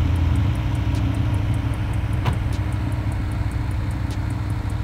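A wreck-race car's engine idling steadily, with a faint fast ticking above the low hum and a single click about two seconds in.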